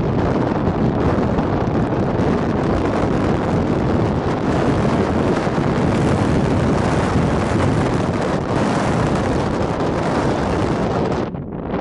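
Strong wind buffeting the microphone, a steady loud rushing noise that drops away briefly near the end.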